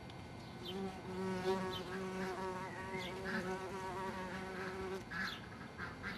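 White-tailed bumblebee (Bombus lucorum) buzzing in flight at its ground nest entrance, a steady low wingbeat hum. It starts about a second in and stops after about four seconds.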